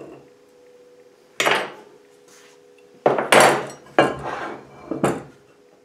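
Steel plate and square steel bar knocking and clattering on a wooden workbench as they are handled: about five sharp metallic knocks, the first about a second and a half in and the loudest near the middle.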